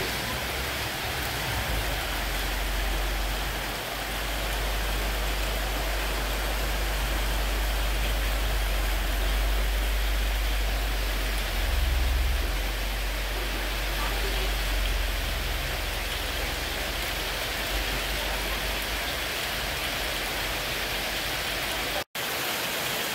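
Heavy rain pouring onto a flooded street, a steady hiss, with the low rumble of a large truck's engine as it drives through the flood water, loudest about halfway through. The sound drops out for an instant near the end.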